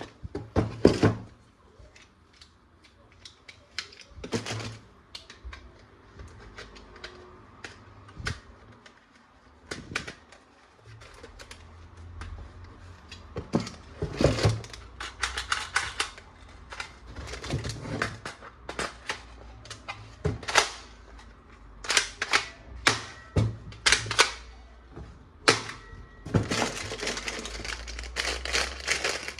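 Hard plastic toy parts clicking and knocking at irregular intervals as they are handled, with plastic packaging crinkling near the end.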